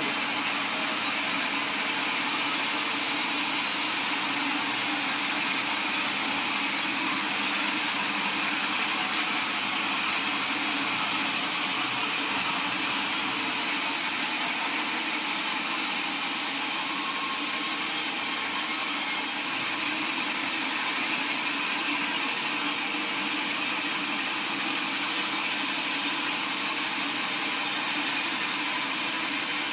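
Sawmill saw machinery running steadily, a continuous mechanical whir that holds an even level throughout.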